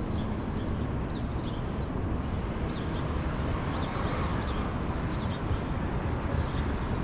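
Steady low rumble of wind buffeting the microphone over street noise, with small birds chirping high and often.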